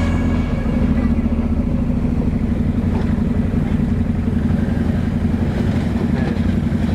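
Several Can-Am Outlander ATV engines running at low speed as the quads pull away one after another, a steady low engine sound.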